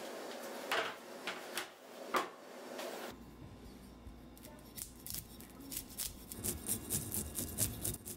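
Brass fish scaler scraping the scales off a whole amadai (tilefish), a fast run of short, sharp rasping scrapes that starts about four and a half seconds in. Earlier there are two louder knocks, about one second and two seconds in.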